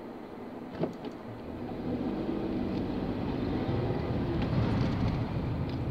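Car driving on a road, heard from inside the cabin: steady engine and tyre noise that swells as an oncoming car passes close by about four seconds in. A single sharp click just under a second in.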